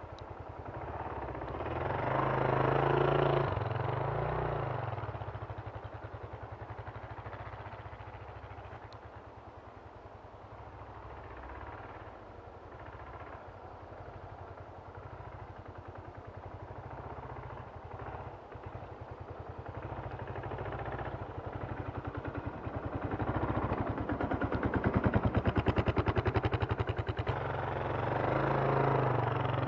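Kawasaki KLR650 single-cylinder four-stroke engine revving up and down as the bike is ridden through about a foot of snow. It grows louder and fades as the bike circles, loudest about three seconds in and again over the last several seconds as it passes close.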